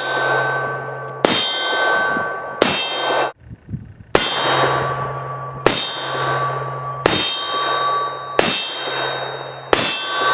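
Steel target ringing as .45 ACP bullets from a revolver strike it, about eight hits in a steady rhythm roughly every second and a half, each a sharp clang that rings on and fades.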